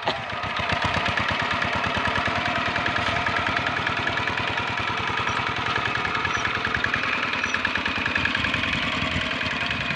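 Single-cylinder Dongfeng diesel engine of a two-wheel hand tractor running with a steady, rapid beat, under load as the tractor's cage wheels pull it through paddy mud.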